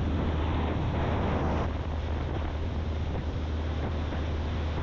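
A small aluminium boat under way: its outboard motor runs with a steady low drone, and wind rushes over the microphone.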